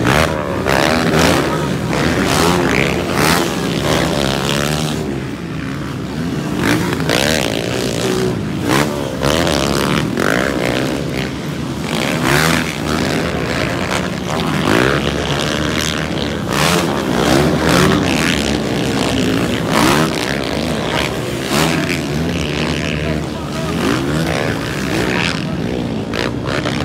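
Several motocross bikes racing, their engines revving up and dropping off again and again as the riders accelerate and shift, the sounds of different bikes overlapping.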